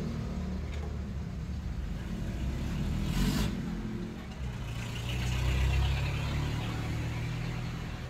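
A motor vehicle engine running nearby: a low, steady hum that swells about three seconds in and again a little past the middle.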